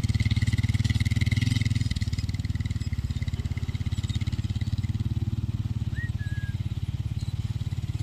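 ATV engine running steadily at low speed, its rapid even firing pulses filling the low end; it eases slightly in level about two seconds in. A single short high chirp sounds about six seconds in.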